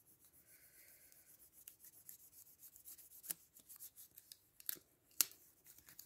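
Fingertips pressing and smoothing aluminium tape onto card: faint crinkling and rubbing of the foil, with a few sharper ticks in the second half.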